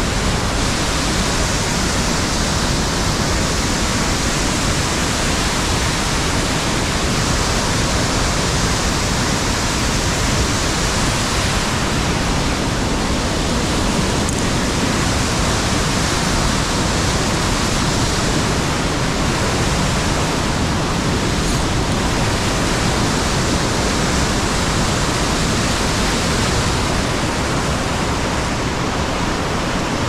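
Steady, loud rush of a mountain waterfall tumbling down a rocky gorge.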